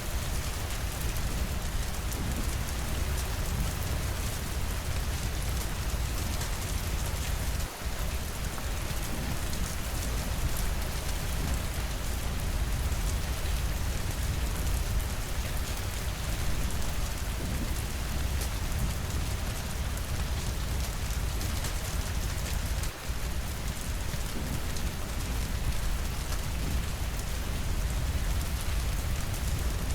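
Steady rainfall: a dense, even hiss with a deep low rumble underneath, dipping very briefly twice.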